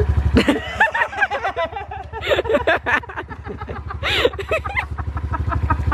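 Dirt bike engines idling with a steady rapid putter, under people laughing and chuckling.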